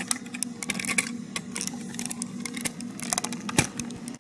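Close handling noise: a quick scatter of small clicks and knocks as the camera and a wooden build stand are moved about and adjusted, over a low steady hum.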